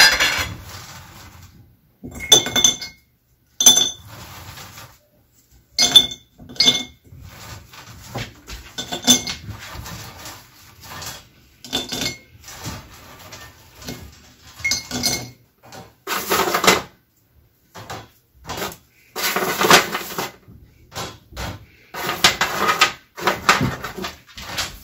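Hard-baked dog biscuits clattering into a glass jar by the handful, with sharp clinks of the glass ringing. Several longer rattling clatters come in the second half.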